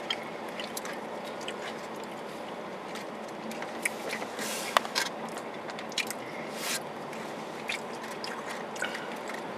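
Chewing and a fork picking through a takeout food container: small clicks and scrapes with a few short rustles, over a steady low hiss.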